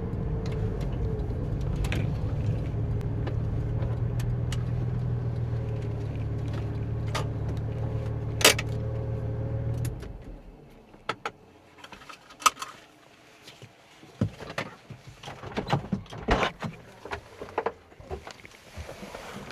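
Porsche 911 (996) Turbo's twin-turbo flat-six running steadily, then shut off about halfway through. After it stops come scattered clicks and rattles, like keys jangling and cabin controls being worked.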